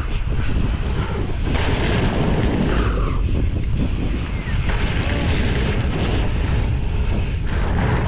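Wind buffeting the microphone of a bike- or helmet-mounted action camera as a mountain bike rides a dirt-jump line at speed: a steady rumbling rush without a break.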